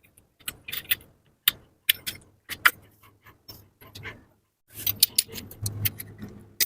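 Irregular metallic clinks and clatters of tools and small engine parts being handled during a motorcycle engine teardown, with a low hum joining in past the middle.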